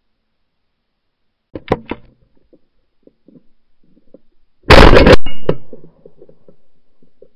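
A shotgun fired once, very loud and close to the microphone of a barrel-mounted camera, the blast dying away over about a second. A few sharp clicks come about three seconds before it.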